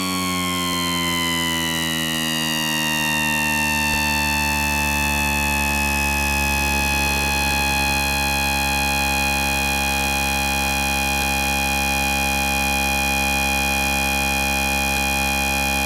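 Black MIDI rendering: a dense cluster of many synthesized tones slides down in pitch over the first few seconds, then settles into one steady, held chord.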